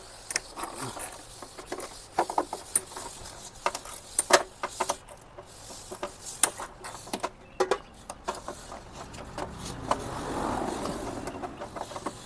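Irregular clicks, taps and knocks of hand work on a motorcycle's fuel pump mounting, with a soft rushing noise that swells and fades about ten seconds in.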